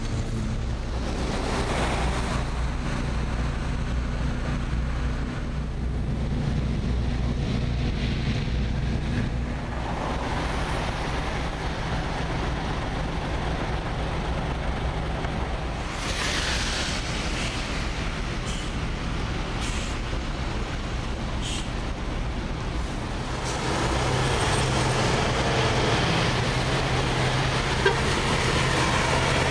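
Steady low hum of idling truck and boat engines. Near the end it grows louder as a truck drives past on the wet road, its tyres hissing.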